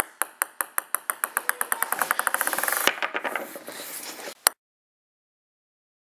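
Ping pong ball bouncing on a table, the bounces coming faster and faster as it settles until they run together into a rapid rattle, then cutting off about four and a half seconds in.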